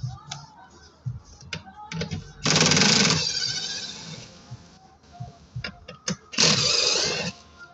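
A small motor runs in two short bursts, each just under a second, about four seconds apart, with light clicks and knocks between them.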